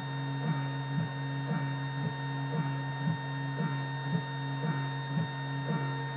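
Desktop CNC milling machine's spindle running with a steady whine and hum as an end mill takes a light finishing pass on an aluminium part. A soft pulse recurs about twice a second.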